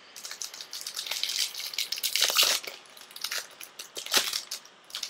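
Foil trading-card pack wrapper being torn open and crinkled by hand: a run of crackly rustling, loudest about two seconds in and again briefly near the end.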